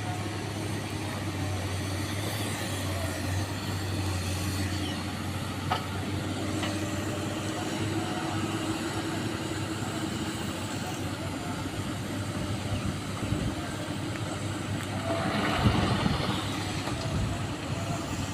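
Excavator's diesel engine running steadily, with a single sharp knock about six seconds in and a louder burst of rattling noise about fifteen seconds in.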